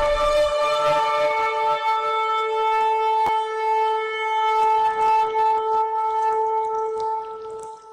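Music: one long held note with many overtones, steady in pitch, fading out near the end.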